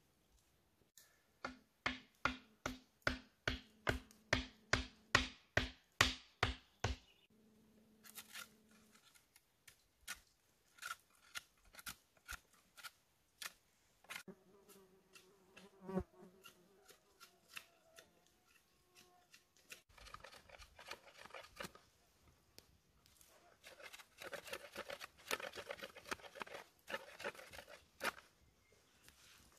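A quick, even run of sharp knocks, about two or three a second, then a knife whittling a green stick, its blade scraping off bark and wood in short strokes.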